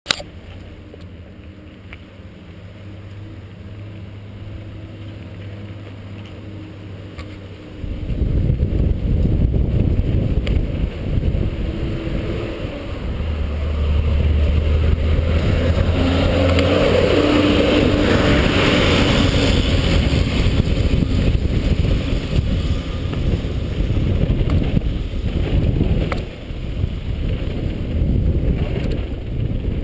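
Mountain bike descending a trail, heard from a camera mounted on the rider or bike. It rolls quietly for the first several seconds, then about eight seconds in turns to loud, continuous rattling and wind noise with jolts over the rough dirt trail.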